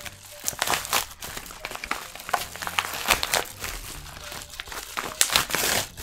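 White mailer envelope crinkling and rustling as hands pull it open and work a small box out, in quick irregular crackles with a louder rustle near the end.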